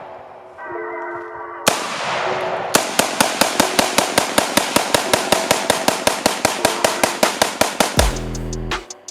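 Springfield Saint AR-15 in .223/5.56 fired semi-automatically: one shot, then a rapid string of about six shots a second lasting some five seconds as a 30-round magazine is emptied. Background music plays underneath.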